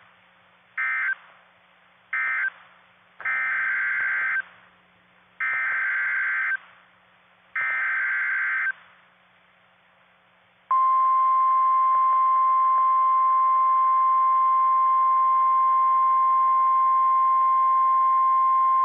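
NOAA Weather Radio Emergency Alert System signalling: two short data bursts closing the previous alert (end-of-message code), then three longer bursts of about a second each carrying the SAME header for the next alert, a tornado watch. About 11 seconds in, the steady 1050 Hz warning alarm tone starts and holds.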